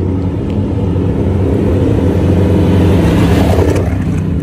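Desert-racing trophy truck's engine running hard as it drives past on the road, getting louder to a peak about three seconds in, then dropping away.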